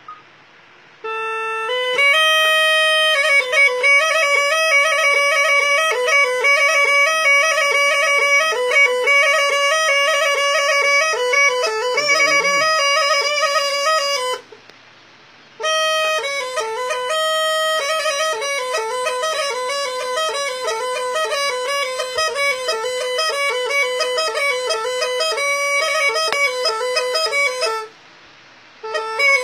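A small homemade cane reed pipe (mizmar) playing a quick, ornamented folk melody with fast note changes. The melody breaks off briefly twice, once about halfway and once near the end.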